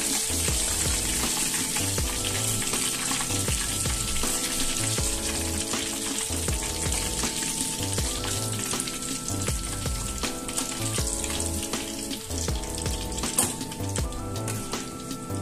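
Breaded chicken deep-frying in hot oil in a wok, with a steady sizzle. Background music with sustained notes and a steady beat plays under it.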